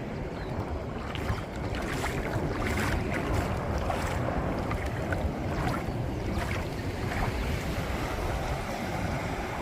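Wind buffeting the microphone over the steady rush of waves and surf, with irregular crackles of water.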